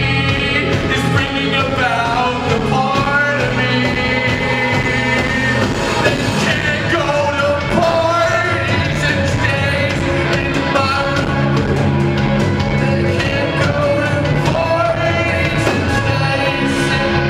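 Live rock band playing, with a man singing lead vocals over guitars, heard from among the audience in a hall.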